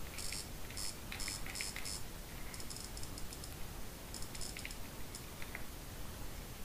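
Quick runs of small, high ticks from a BlackBerry's trackball being rolled to scroll a web page, in several short bursts that stop about five and a half seconds in, over a steady faint hiss.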